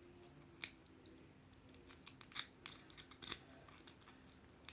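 Lock pick and tension tool working inside a Master Lock padlock: a few faint, sharp metal clicks and scrapes at uneven intervals, the loudest a little over two seconds in.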